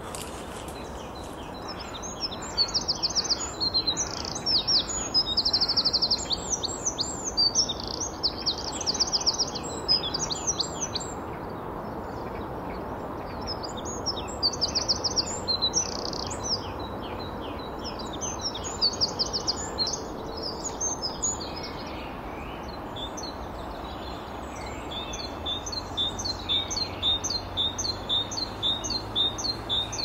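Eurasian wren singing several bursts of its fast, rattling trilled song. Near the end a great tit takes over with its rhythmic, repeated two-note 'teacher, teacher' song.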